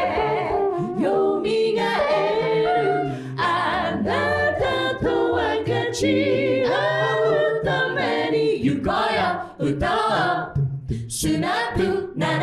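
Mixed male and female a cappella group singing in close harmony over a sung bass line. Near the end the voices break into short, choppy rhythmic hits.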